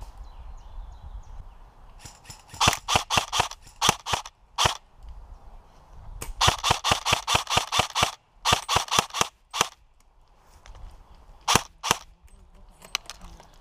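Airsoft guns firing: quick strings of sharp cracks, several shots a second. There are bursts about two and a half seconds in and again from six to nearly ten seconds in, then two last shots near the end.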